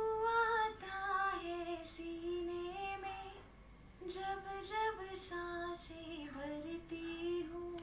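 Recorded solo singing voice in a high register, played back through a channel EQ that cuts the lows, dips the mids and boosts the highs for a crisp, sharp sound. Two phrases of long held notes, with a short break about three and a half seconds in.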